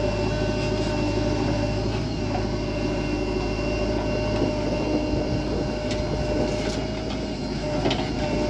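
Heavy diesel engine of earth-moving machinery running steadily, with a few light knocks from about six to eight seconds in.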